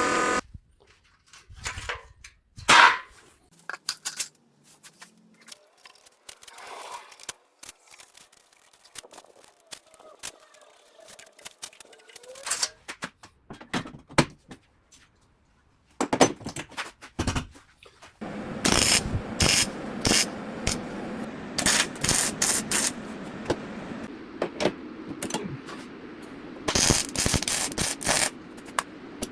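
Workshop tool work on metal parts: scattered clicks and knocks at first. About two-thirds of the way through it turns into a steady noise full of rapid clicking.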